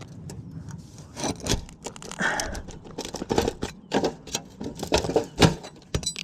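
A shingle snake tool worked under asphalt roof shingles to pull a roofing nail: irregular clicks, cracks and scrapes, busier and louder in the second half.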